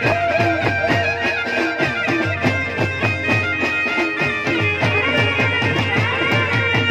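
Instrumental interlude of live Gujarati folk music: a fast, steady drum beat of about four strokes a second on dhol and drum kit, under a keyboard playing a gliding lead melody.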